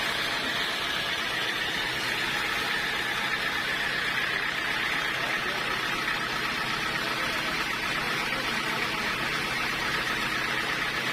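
Sawmill machinery running with a steady, unchanging mechanical hum and hiss.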